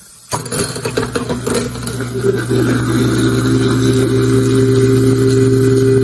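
Kitchen garbage disposal switched on about a third of a second in, grinding up two foaming cleaner tablets: clattering at first as the motor spins up, then settling into a steady hum.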